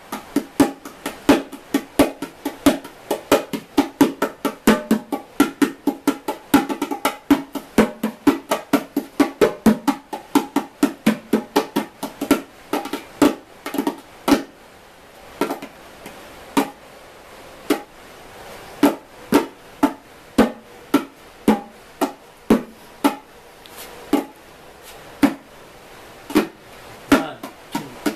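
A pair of natural-skin-head bongos played by hand. A dense, quick run of strokes thins out about halfway through into sparser hits with short gaps between them.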